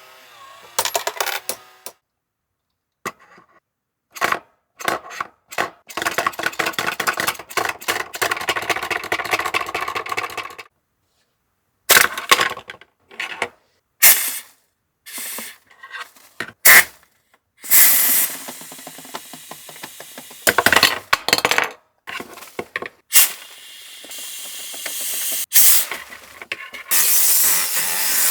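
Battery-operated toy jumping horse driven directly from a DC power supply: its small motor and plastic gears clatter and rattle in stretches that start and stop abruptly, running longer and louder in the second half.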